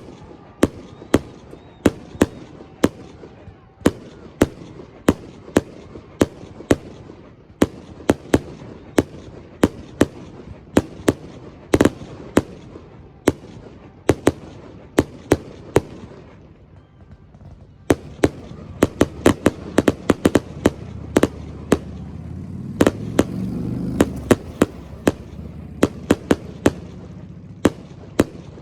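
Aerial fireworks display going off: a steady string of sharp bangs, about two a second. About two-thirds of the way in, a low rumble swells as the shells come thicker.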